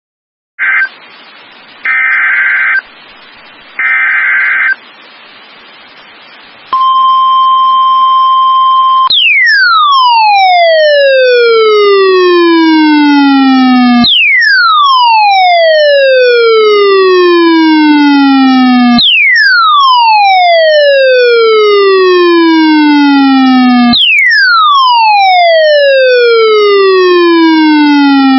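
Emergency Alert System opening tones. First come three short screechy bursts of SAME data header, then a steady high alert beep for about two seconds. Then a siren-like tone sweeps down in pitch and restarts every five seconds.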